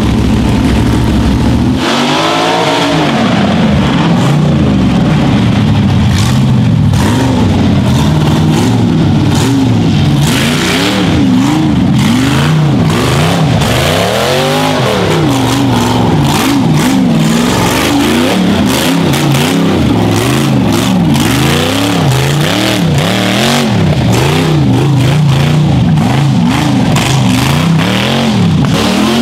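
Rock bouncer buggy's engine revving hard, its pitch rising and falling over and over as the driver works the throttle climbing a steep dirt hill, with sharp knocks and clatter mixed in.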